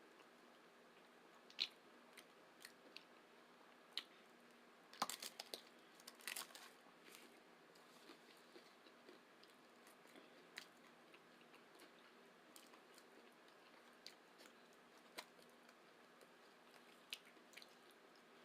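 Faint close-up eating sounds of tacos being bitten and chewed: sparse wet clicks and crunches, with a quick run of bites about five to six and a half seconds in.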